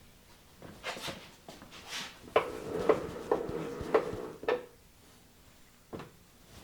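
A run of sharp metal knocks and taps with a ringing tone among them, then a single knock near the end.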